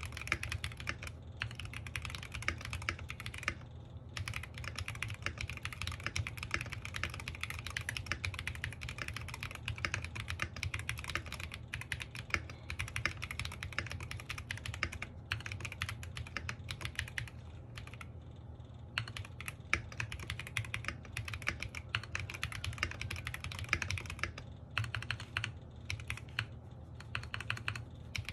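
Fast, steady typing on a foamed NJ68 MAX mechanical keyboard with pudding keycaps: a dense run of keystroke clacks, with short pauses about four seconds in and again around eighteen seconds. A steady low hum runs underneath.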